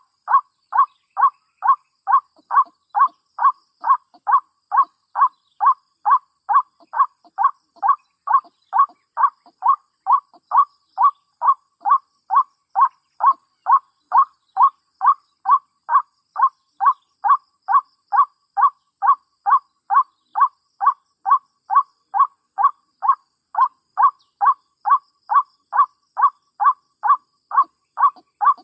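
White-breasted waterhen 'kwak' call repeated about twice a second, every call the same length and loudness without a break: a recorded lure call played back to draw waterhens to the trap.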